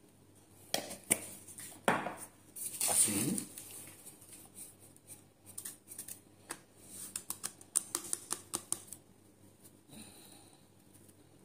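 Sharp clicks, scrapes and rustling of small kitchen items being handled, busiest in the first few seconds, with a second run of clicks from about seven to nine seconds in.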